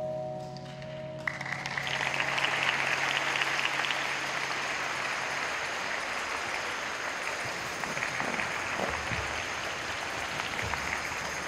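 The last sustained chord of the figure-skating program music ends about a second in, and audience applause starts at once and carries on steadily.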